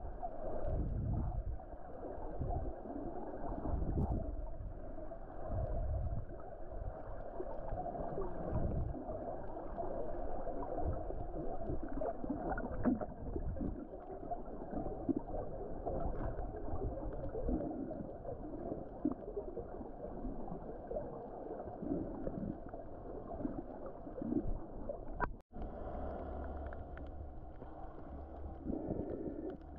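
Muffled underwater sound picked up by a camera in a waterproof housing: low, irregular rushing and gurgling of water moving past it. A brief dropout comes near the end, after which a steadier low hum sets in.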